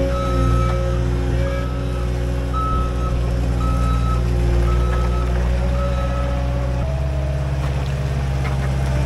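Cat 289D3 compact track loader's diesel engine running under load while its reverse alarm beeps about once a second as it backs out of the mud pile with a full bucket. The beeping stops about six seconds in, and the engine note shifts shortly after as the machine drives forward.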